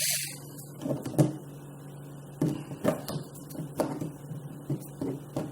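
Irregular light clicks and knocks, about seven over a few seconds, from the plastic Nest Protect mounting plate and its screws being handled and fitted at a ceiling electrical box, over a steady low hum.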